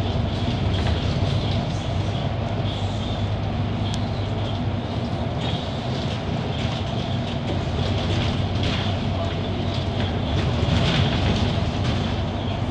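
Cabin noise of a Mercedes-Benz Citaro articulated city bus under way: steady diesel engine hum and road noise, with a few light rattles.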